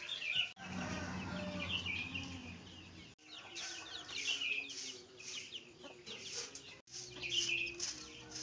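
Domestic chickens clucking, with small birds chirping, and the scratchy strokes of a broom sweeping bare ground in the later part.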